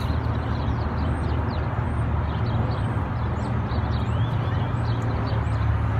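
Steady low vehicle engine rumble, with many small birds chirping high over it in short quick notes.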